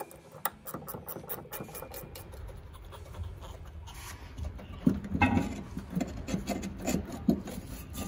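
Hand tools working the rear leaf-spring shackle bolt loose under a car. Quick metallic clicking for the first couple of seconds, then irregular metal clunks and scraping.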